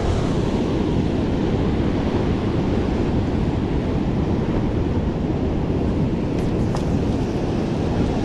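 Sea surf breaking and washing over rocks, with wind buffeting the microphone. Two faint clicks come near the end.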